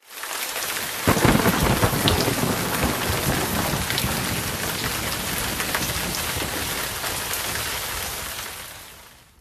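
Heavy rain and thunder, with a sudden loud thunderclap about a second in, then steady rain noise that fades out near the end.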